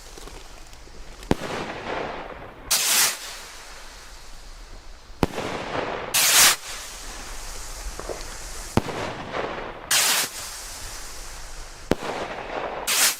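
Consumer New Year's fireworks going off: four times, a sharp crack is followed about a second later by a longer, louder burst, with the pairs coming every three to four seconds.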